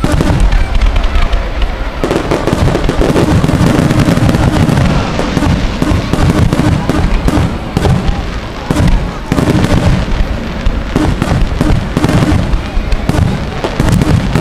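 Aerial fireworks shells bursting in quick succession, a dense, unbroken run of loud bangs and crackles.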